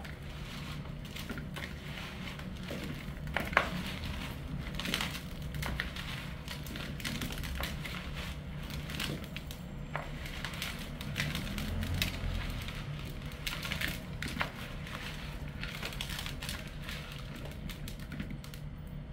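Hands mixing and squeezing cracked green olives with salt, lemon and chili pieces in a plastic bowl: irregular wet crunching and clicking as the olives rub and knock together, with one sharper click about three and a half seconds in.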